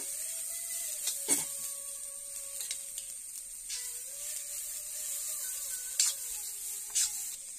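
Vegetables stir-frying in a cast-iron kadai over a gas flame: a steady sizzle, with a steel spatula scraping and knocking against the pan about three times.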